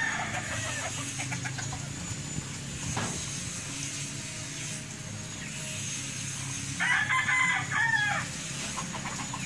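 Rooster crowing: the end of one crow right at the start, then a full crow about seven seconds in, lasting about a second and a half.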